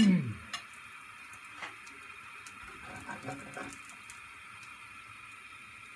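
Frying pan on a gas hob: a steady faint hiss from the burner and the cooking egg, with a few light clicks and taps as the pan is handled on the grate.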